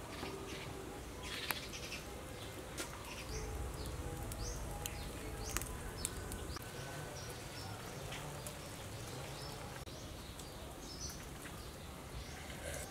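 Small birds chirping repeatedly in short high calls, with a few sharp clicks and a low steady rumble underneath.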